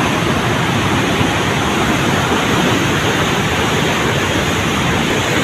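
Fast-flowing, silt-laden river floodwater rushing past in a steady, loud rush.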